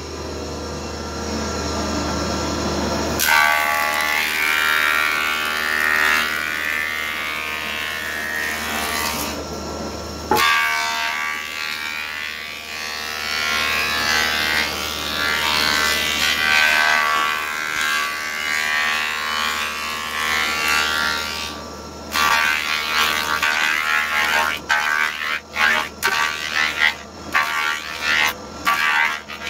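Multipurpose woodworking machine running with a steady whine while its cutters plane wooden boards to thickness. A rushing cutting noise starts suddenly about three seconds in, eases about twenty-two seconds in, and breaks into uneven pulses over the last few seconds.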